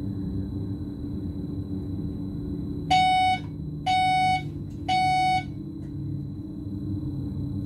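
Three half-second beeps from the driver's cab warning system of a BLS RABe 515 electric multiple unit, about a second apart, starting about three seconds in, over the steady rumble of the train running at speed. The beeps come as the train passes the announcement of an 80 km/h slow-speed section ahead.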